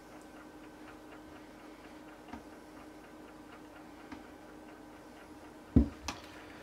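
Faint regular ticking, then a solid knock of kitchenware on the table near the end, followed by a lighter click.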